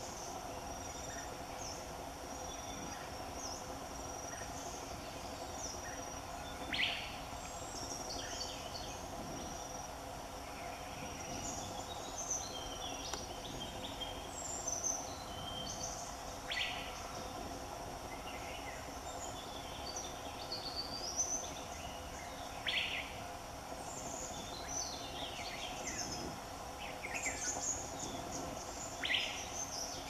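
Wild birds calling over a steady insect chorus: a continuous high insect trill and hum, with scattered chirps and twitters and a short sharp call that comes four times, about every six seconds.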